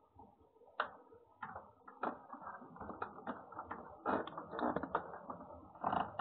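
A cat eating from a stainless steel bowl: irregular clicks and clatter, coming thicker from about four seconds in, with a louder burst near the end.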